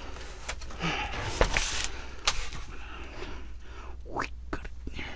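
Someone crawling and shifting about in a cramped crawlspace, with rustling and scraping on cardboard, a few sharp knocks and sniffing breaths, over a low steady hum.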